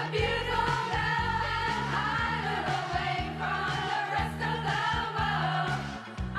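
Music: a song with a steady beat and singing.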